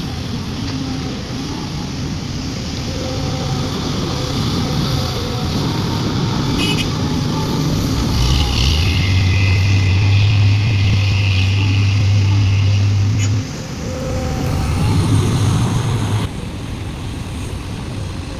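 Heavy diesel machinery of an excavator loading a dump truck, running continuously. About eight seconds in, a loud low drone with a high whine over it swells up and holds, then drops off sharply about five seconds later, typical of the excavator's engine working under hydraulic load. A shorter swell follows.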